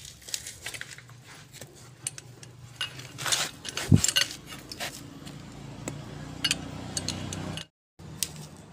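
Metal clinks and knocks from a wrench and socket working the bolts on a Colt Diesel differential carrier as they are tightened, with one sharp metal knock about four seconds in. A low steady hum runs underneath in the second half.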